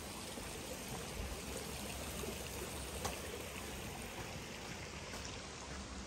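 Steady rush of flowing water from a creek or falls.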